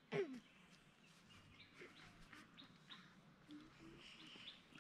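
Near silence with faint, scattered small bird chirps, opening with one brief falling call.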